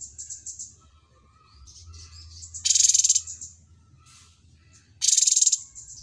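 Caged sunbird singing: two short, loud bursts of rapid high trilling about two and a half seconds apart, with softer chirps between them. It is the cucak cungkok song the bird has been taught to copy.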